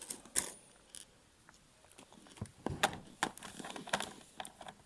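Small plastic Lego pieces clicking and clattering as they are handled, a few scattered clicks at first and a busier run of them in the second half.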